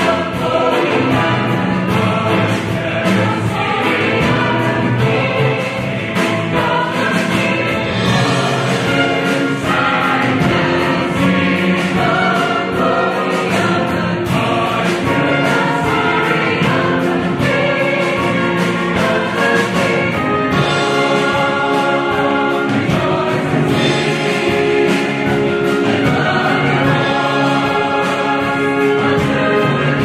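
Large mixed choir of men's and women's voices singing together in full, sustained chords, steady and loud.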